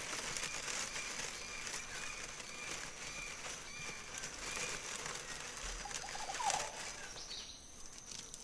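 Recreated rainforest ambience: a steady high hum, faint repeated bird-like chirps and light rustling ticks, with one short louder call about six and a half seconds in.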